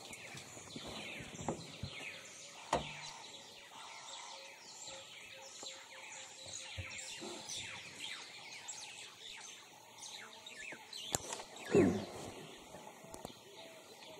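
Woodland birds chirping and calling, many short high-pitched calls overlapping throughout, with a few sharp knocks and one brief louder low sound near the end.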